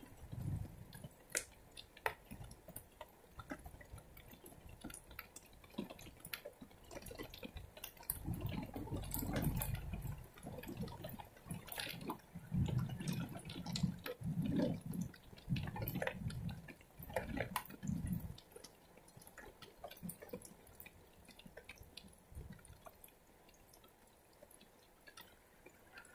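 Heavy rain falling on wet pavement, with close drops dripping and splattering in scattered ticks. A low rumble comes and goes through the middle.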